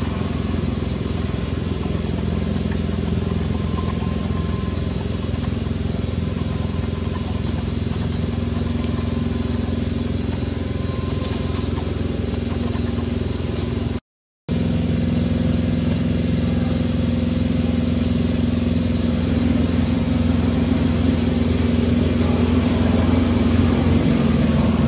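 A steady engine hum, like a motor vehicle idling, with one brief total dropout about halfway through.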